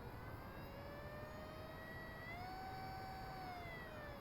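Electric motor of a Blade 450 3D RC helicopter whining as it is throttled up: the pitch rises, steps up about two seconds in, holds, and falls away near the end. The motor spins but the rotor does not turn, because the pinion isn't meshing with the stripped main gear.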